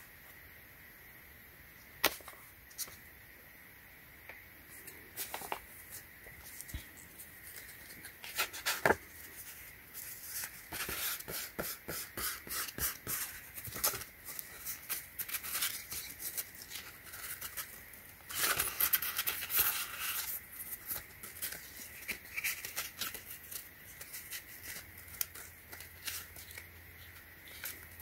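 Sheets of wet-and-dry sandpaper being flexed and leafed through by hand: stiff paper crackling and rustling in many quick strokes, with a few sharp clicks in the first seconds and a denser stretch of rustling about two-thirds of the way through.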